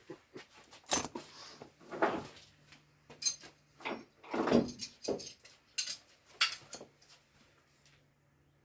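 Loose bolts and small metal parts clinking and clattering as they are handled and tossed onto a pile: about eight separate knocks and rattles over several seconds, then it goes quiet near the end.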